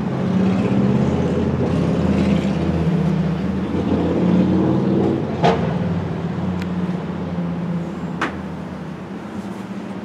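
A steady low humming rumble that eases off over the last few seconds, with two sharp knocks, one about halfway through and one a few seconds later.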